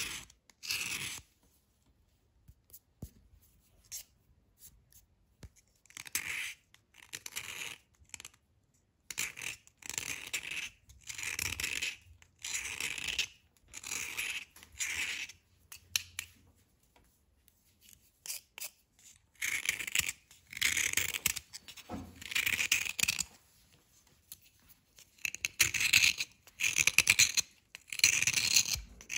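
Knife blade scraping a crumbly white bar in repeated short strokes, shaving off powder: a dry, scratchy rasp with pauses between strokes. After a near-silent gap in the first few seconds, the strokes come faster and louder in the last third.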